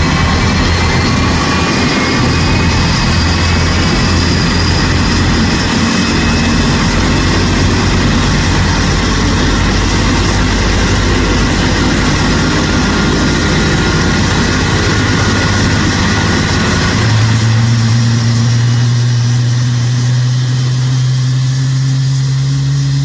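A Boeing 777's GE90 turbofan engine running loudly during start-up, a steady rush with thin whining tones that rise slowly in pitch as it gains speed. About 17 seconds in, a strong low hum comes in and creeps upward too.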